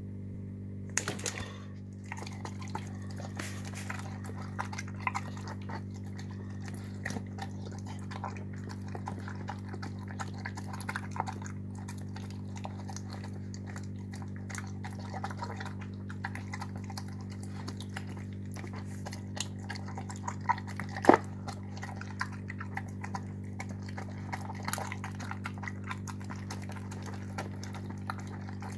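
A dog eating wet canned dog food in gravy mixed with pasta from a bowl: a long run of small, irregular wet chewing and lapping clicks, with one sharper click about 21 seconds in. A steady low hum runs underneath.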